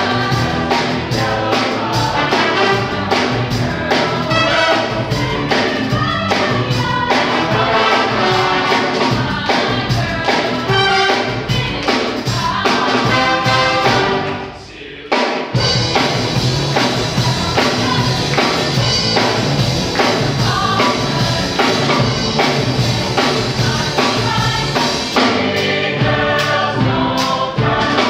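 Live jazz big band playing, with a brass and saxophone section over electric guitar, bass guitar and drums, and a group of singers singing along. The music breaks off briefly about halfway through, then picks up again.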